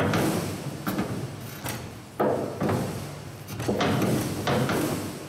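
A steel bar welded to plate is heaved on by hand in a bend test of a vertical-down MIG weld, with a clunk and creak of metal on each of about five pulls, each starting sharply and fading. The 3/8 bar bends while the weld holds.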